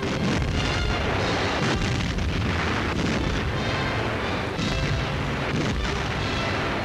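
Field artillery guns firing: repeated loud booms over music on an old newsreel soundtrack.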